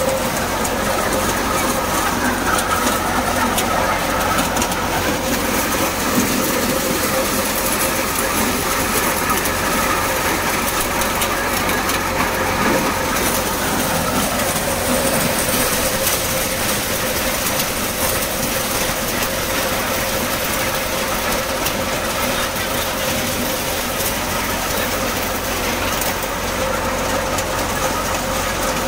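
Multi-crop thresher running steadily while shelling maize, a continuous mechanical clatter with a steady hum.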